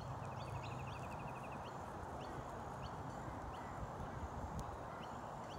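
Steady outdoor background noise, with small birds chirping faintly: short rising chirps recur every half second or so, and a quick rattling trill of about ten notes a second comes early.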